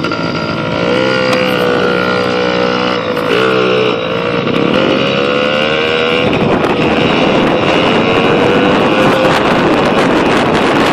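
Pit bike engine running under load, its pitch climbing, dipping about three seconds in, then climbing slowly again, with wind buffeting the microphone as it rides.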